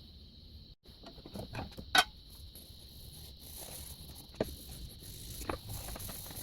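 Irregular light clicks and knocks of hard parts being handled on a workbench, with one sharper click about two seconds in, over a faint steady high-pitched tone.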